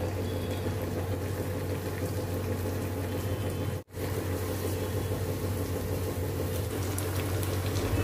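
Homemade white butter melting and bubbling in a kadhai over a gas flame, a steady sizzling, bubbling noise over a low hum: the first stage of cooking butter down into ghee. The sound cuts out for an instant about four seconds in.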